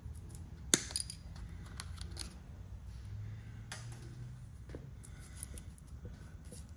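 Hand work on a motorcycle's wiring: a sharp snip about a second in, typical of diagonal cutters cutting a zip tie, then several lighter clicks and rattles of cut ties and plastic connectors being handled. A steady low hum runs underneath.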